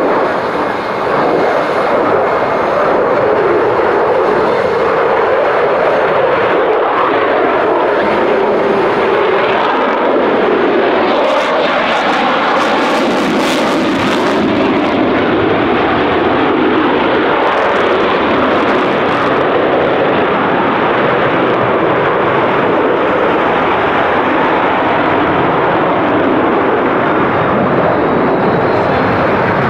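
Eurofighter Typhoon's twin EJ200 jet engines roaring on afterburner as the jet manoeuvres overhead: a loud, continuous roar that swells and shifts as it turns, with a few short sharper bursts midway.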